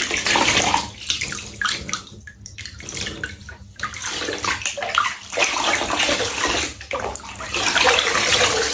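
Water running and splashing in a bathtub while an animal is being bathed, dropping quieter for a stretch about two seconds in, then loud again from about five seconds in.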